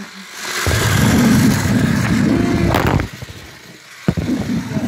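A toy train rumbles loudly right against the microphone for about two seconds, then stops with a sharp clack, and another clack comes about a second later.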